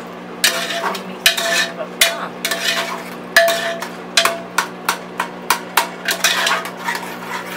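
A spoon stirring cooked taro leaves in a metal pressure cooker pot, scraping and clinking against the pot's side about twice a second, some clinks ringing briefly. A steady low hum runs underneath.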